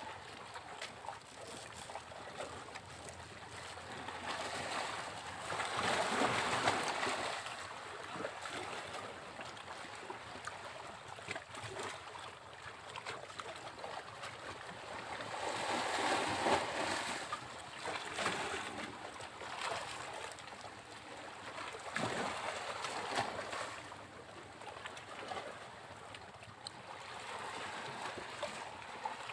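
Sea waves breaking on a beach: a constant wash of surf that swells into a louder break about every ten seconds, three times over.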